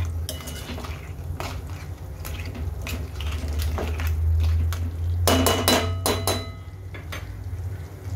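Steel spoon stirring crab pieces in thick masala in a stainless steel kadai, scraping and clinking against the pan. A quick run of ringing metal clinks comes about five to six seconds in, over a steady low hum.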